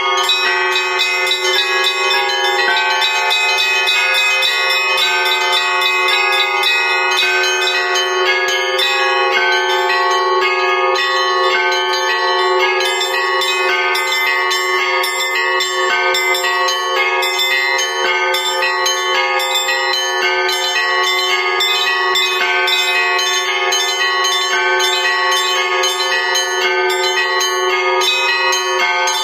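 Russian Orthodox church bells rung in a continuous festive peal (zvon), many bells of different pitches struck in a quick, overlapping rhythm without pause. It is the ringing to greet a procession of the cross.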